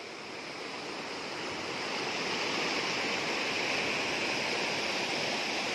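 Waterfall cascading over a steep rock slope: a steady rush of water that grows louder over the first two seconds, then holds.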